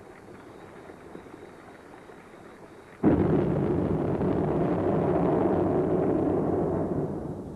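Volcanic eruption at Arenal: about three seconds in, a sudden explosive blast breaks over a low background rumble, then runs on as a loud, rushing roar for about four seconds before dropping back near the end.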